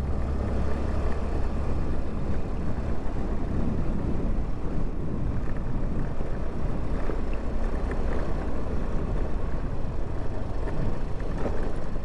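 Riding a scooter uphill: a steady rush of wind buffeting the microphone and road noise, with the small engine running underneath.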